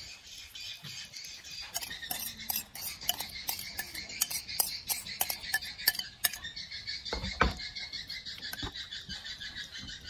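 Metal spoon clinking and scraping against a ceramic bowl while raw beef salad is mixed, in quick irregular clicks, with a dull thud about seven seconds in. A steady high chirring runs underneath.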